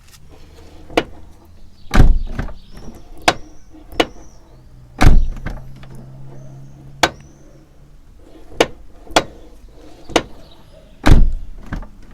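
Toyota Corolla E150 car door being worked open and shut, with a run of sharp clicks and three heavy knocks. The knock comes from the door check, which the owner puts down to worn rollers or guides in the check; it is still there with the check freshly greased.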